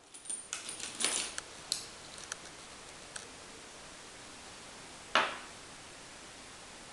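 Spent brass cartridge cases clinking and ticking against each other as a hand rummages in a plastic tub full of them, a quick run of small clicks over the first two seconds or so. After that it is mostly quiet, with one short, louder noise about five seconds in.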